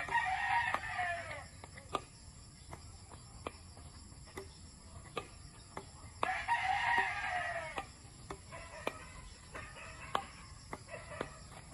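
A rooster crowing twice, each crow about a second and a half long, the first at the start and the second about six seconds in. Between them, sharp clicks roughly once a second from badminton rackets striking a shuttlecock in a rally.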